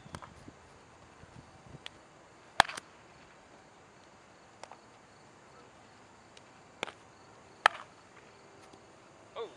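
Baseball fielding drill: several sharp cracks and pops of a ball being hit and smacking into a leather glove, the loudest about two and a half and seven and a half seconds in. Insects chirp faintly underneath.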